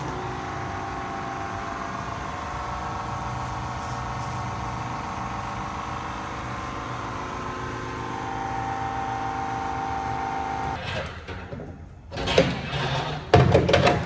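Steady motor drone with several held tones and a low hum, running while the concrete gel is sprayed. It shifts slightly in pitch about eight seconds in and cuts off about eleven seconds in. It is followed by a few loud, irregular knocks and rustles near the end.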